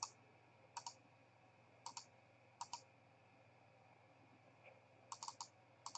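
Faint clicking at a computer: a few scattered single and paired clicks against a quiet room.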